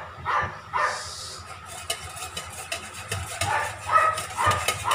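A dog yapping several times in quick succession, stopping about a second in. Then a wire balloon whisk beating batter in a stainless steel bowl, its wires clicking and scraping against the metal.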